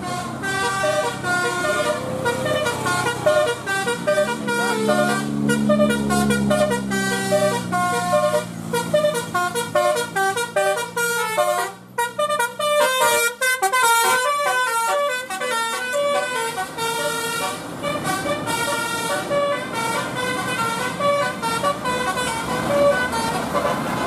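Multi-trumpet 'telolet' bus horn driven by a DAV horn module, playing a fast melody of short stepped notes over and over. A bus engine hums low underneath for a few seconds, and the tune breaks off briefly near the middle before starting again.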